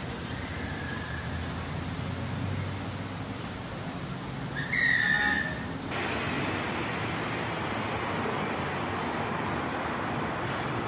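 Metro station platform noise: a steady low rumble and hiss, with a single shrill whistle about five seconds in that lasts under a second. Just after it, the sound cuts to a louder, even rushing noise.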